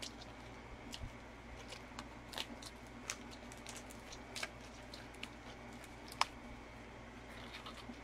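Small plastic packaging being worked open by hand: faint crinkling and scattered clicks, with one sharper click about six seconds in.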